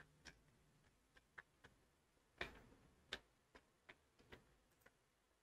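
Faint, irregular clicks of a computer mouse, about ten of them, the loudest about two and a half seconds in, over near silence.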